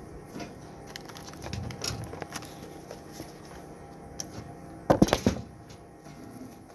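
Electric welding arc crackling and sputtering irregularly as a weld is laid on steel, with a louder burst of crackling about five seconds in.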